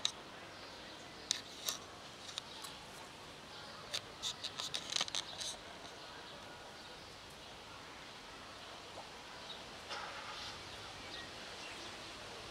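Cat crunching dry food: scattered sharp crunches, thickest in a quick cluster about four to five seconds in, over a faint steady outdoor hiss.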